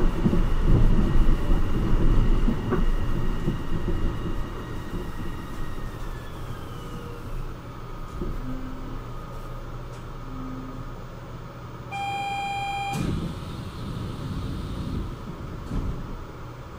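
Port Liner rubber-tyred automated guideway train slowing down: its running rumble fades and the motor whine slides down in pitch as it brakes into a station. About twelve seconds in, a single electronic beep sounds for about a second.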